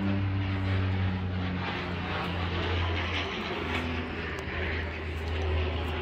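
A steady low rumble with a broad roar over it that swells slightly now and then, the sound of an engine at a distance.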